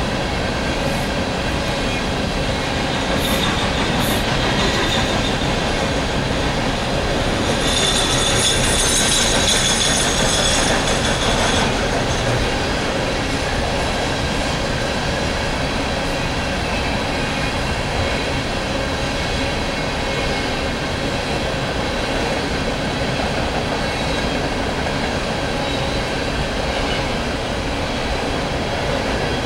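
Empty coal cars of a long freight train rolling steadily past: a continuous rumble and rattle of wheels on rail. A high metallic squeal from the wheels rises over it from about 8 to 12 seconds in.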